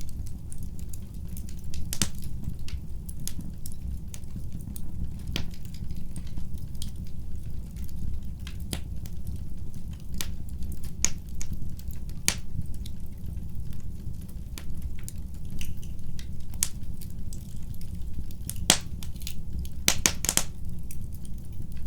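Fire burning in a fireplace, crackling with sharp, irregular pops over a steady low rumble of the flames; a quick run of pops comes near the end.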